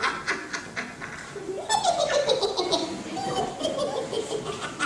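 A high-pitched voice cackling with laughter in quick, repeated pulses, each bout sliding down in pitch; a longer bout starts a little under two seconds in and another follows near the end.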